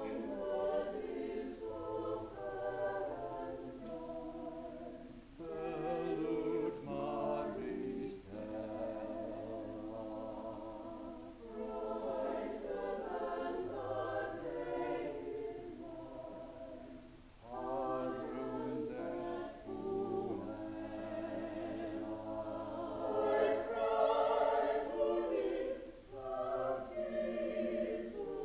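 A choir singing, in long phrases broken by short pauses for breath.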